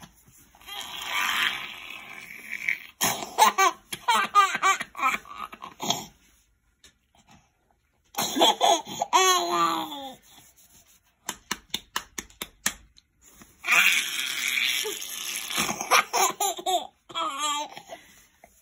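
A toddler laughing in several bouts, breathy giggles and pitched squeals, with short pauses between them and a run of quick short laugh pulses about midway.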